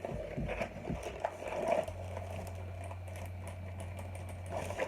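A few light clicks and knocks of handling, then a steady low hum that starts about two seconds in and stops near the end.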